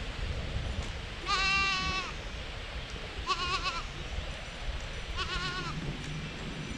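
Goat bleating three times: one long call about a second in, then two shorter bleats with a wavering pitch.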